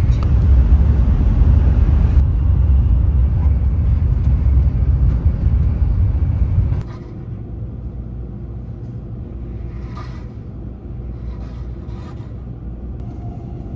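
Running noise of a train heard from inside the passenger cabin: a loud, steady low rumble that drops abruptly to a quieter rumble about seven seconds in, with a few light clicks later on.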